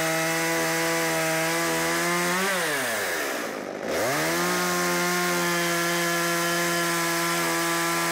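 Stihl MS 192 T top-handle two-stroke chainsaw running at full throttle, cutting through a tree limb. About two and a half seconds in, the engine note drops sharply and climbs back to full speed a second later.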